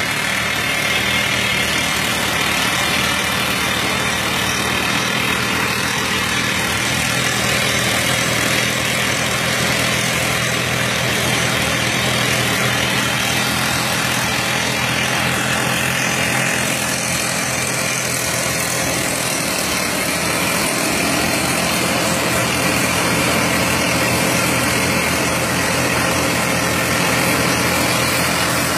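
Steady din of heavy machinery at work: the diesel engine of a Hyundai 330 excavator running, with a low hum and constant mechanical noise from the stone mill, unbroken throughout.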